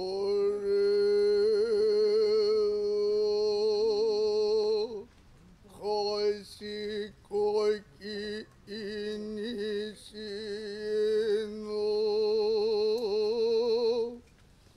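Noh chanting (utai) by a male voice: long held, wavering notes, then shorter phrases about halfway through, cut by a few sharp strokes of a Noh hand drum.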